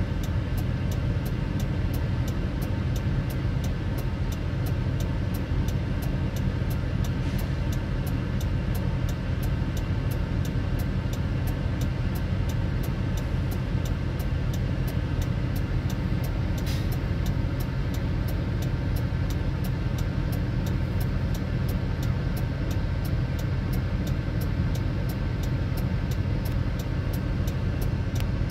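Truck engine idling with a steady low rumble, and a faint regular ticking about three times a second.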